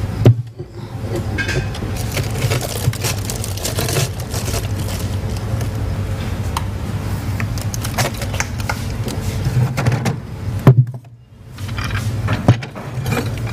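Refrigerator door and its freezer compartment being opened and handled as a dish goes in: scattered clicks and knocks over a steady low hum, with the loudest knock near the end.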